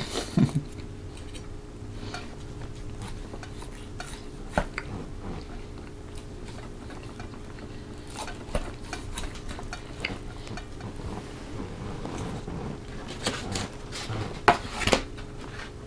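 Knife and fork scraping and clinking against a plate as a whole cooked chicken is carved: scattered light clicks, with a few louder clinks near the end.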